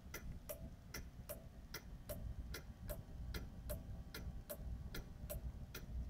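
Suzuki TL1000R's turn-signal flasher ticking steadily as the blinkers flash, an even tick-tock of about two and a half clicks a second, every other click sounding a little different from the one between.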